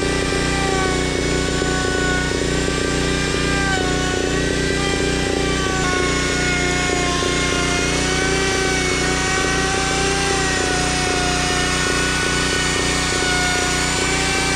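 Handheld corded electric power tool running continuously as it is worked along the edge of a wooden frame board, its motor whine wavering in pitch as the load changes.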